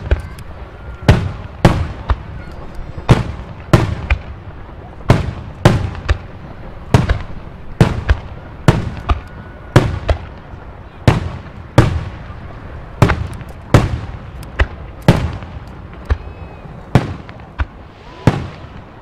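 Aerial firework shells from a Nomura Fireworks display bursting in quick succession, sharp loud bangs about one and a half a second, often in twos and threes, each with a short echo, with a faint whistle now and then.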